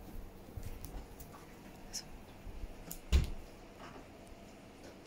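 A few faint clicks and knocks, with one sharp thud about three seconds in.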